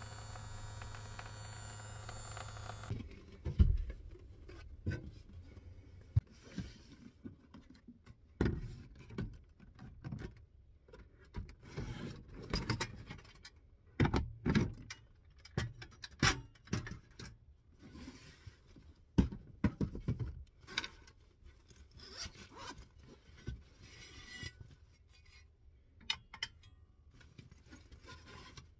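Portable electric water bottle pump humming steadily as it dispenses water, stopping abruptly about three seconds in. Then a hard plastic carrying case is opened and a portable butane stove and round grill pan are taken out and set down: a string of sharp clicks and knocks with scraping of plastic and metal.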